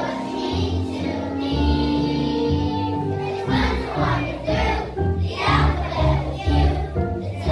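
A kindergarten children's choir singing with instrumental accompaniment, the music growing fuller and more rhythmic about halfway through.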